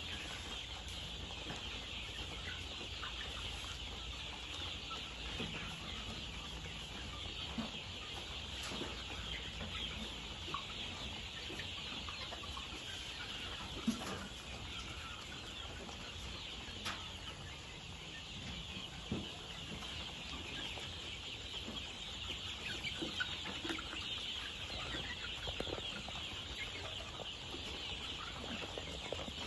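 Desi (country) chickens clucking softly now and then, with a few sharp clicks, over a steady high-pitched hiss.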